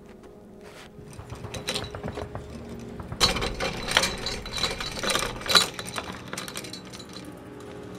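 Metal clicking and rattling of a door's locks and bolts being worked, sparse at first, then a dense run of loud clatter from about three seconds in until nearly six seconds.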